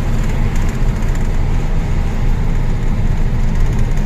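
Loaded truck's diesel engine and road noise heard from inside the cab while cruising on a highway: a steady, unbroken low drone.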